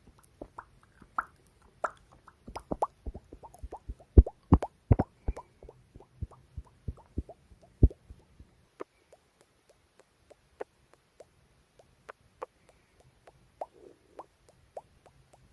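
Close-miked ASMR mouth sounds: a run of short mouth clicks, coming fast from about two and a half seconds in until about eight seconds, then slower and sparser.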